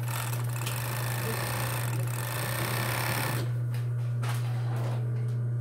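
Pegasus industrial overlock (serger) machine running at speed, stitching and trimming a test strip of fabric for about three and a half seconds after a repair, then stopping. A steady low hum continues throughout, with a few light clicks after the stitching stops.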